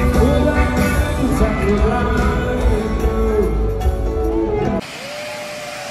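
Loud music with a heavy bass and a sung melody line. It cuts off abruptly near the end, giving way to a quieter hiss with one long held note.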